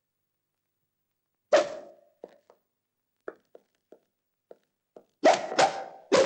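Film fight-scene punch sound effects: one sharp hit about a second and a half in, a run of faint light knocks, then three loud hits in quick succession near the end.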